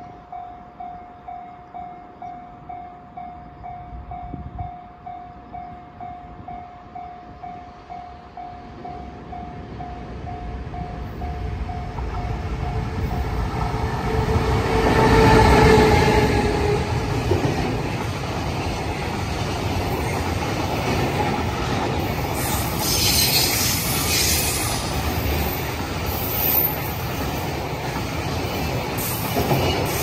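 Level-crossing warning bell ringing in a steady pulse, about two rings a second, as a freight train hauled by an EF510 electric locomotive draws near; the locomotive passes loudest about halfway through. Container wagons then roll by steadily, with bursts of high-pitched wheel squeal in the second half.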